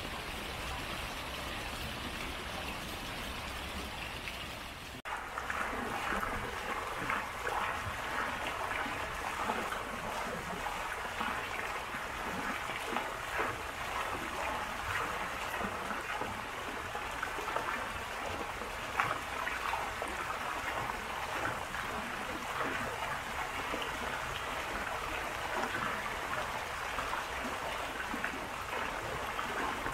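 Water flowing and trickling steadily, like a small garden stream or water feature. About five seconds in it changes abruptly to louder, brighter splashing.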